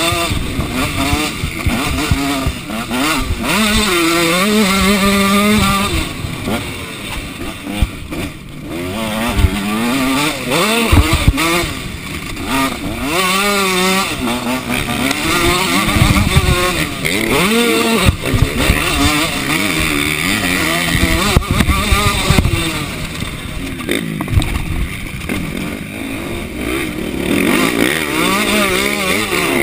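Motocross bike engine at race pace, heard from a camera on the bike's handlebars: the revs climb and drop again and again as the rider works the throttle and shifts gears.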